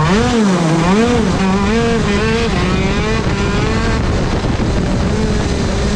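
A 125cc two-stroke KZ shifter kart engine, heard onboard, revs up and down twice in the first second and a half, then runs at a steadier, slowly falling pitch. It is running with a tight, dragging clutch that has overheated, which the rider says left him with about half the engine's power.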